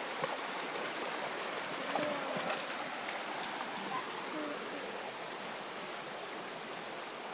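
Flowing stream water rushing steadily, with a few small splashes and knocks in the first four seconds as a golden retriever pulls stones out of the water.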